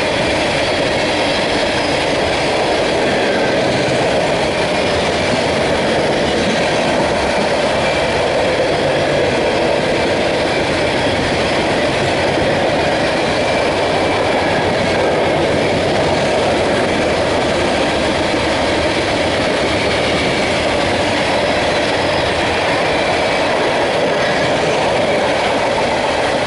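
Loaded CSX coal train rolling past on the rails, a continuous steady rumble of wheels on track at an even level.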